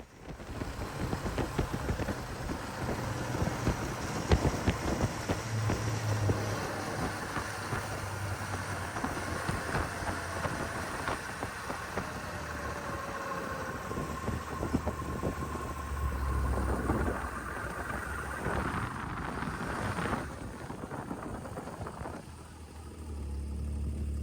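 A vehicle running, with a low engine hum, constant rattling and knocking, and wind on the microphone.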